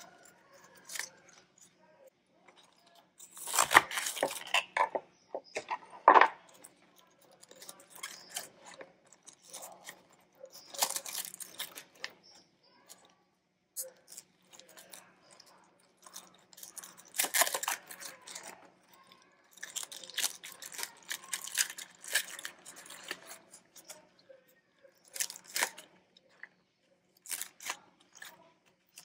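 Crisp radicchio leaves being pulled off the head and snapped from the core by hand: irregular bursts of crackly tearing and crunching, the loudest a few seconds in.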